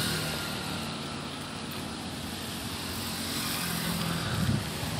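Engine hum with wind and road noise from a vehicle driving along a road. The sound is steady and swells briefly near the end.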